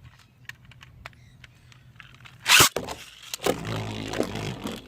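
Plastic ripcord rasping through a Beyblade launcher's gear, in a sharp zip about halfway through and a longer rattling pull near the end, with small plastic clicks from the launchers being handled.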